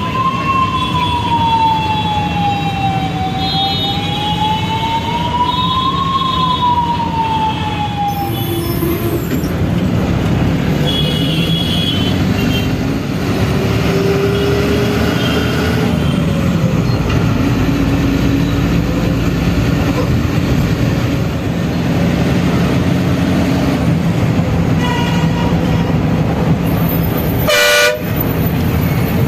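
City traffic heard from inside a moving bus: the bus's engine drones steadily under road noise while a siren wails slowly down, up and down again over the first eight seconds or so. Vehicle horns honk briefly several times, and there is one sharp knock near the end.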